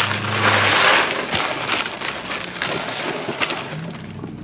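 Trading cards and their packaging being handled: a loud rustling scrape in the first second that fades away, with a few light taps and clicks.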